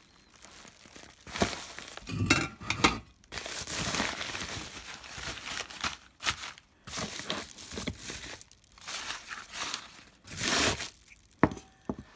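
Newspaper and plastic bubble-wrap packaging crumpling and rustling in irregular bursts as it is unwrapped by hand, with one sharp click near the end.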